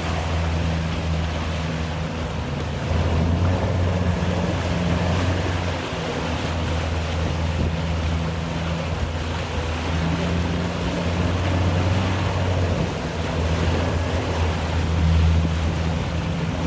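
A boat's motor running with a low drone that swells and dips every few seconds, under wind and the wash of choppy water.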